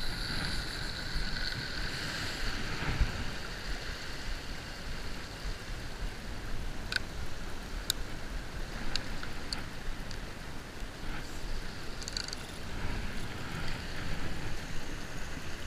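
Wind buffeting the microphone over a low surf hiss. A revolving-spool casting reel whirs for the first couple of seconds as line pays out after a cast, then fades. A few sharp clicks come in the middle, and another small cluster near the end.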